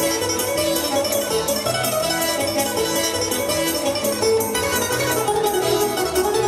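Ensemble music with plucked string instruments: a melody carried over an even strummed rhythm.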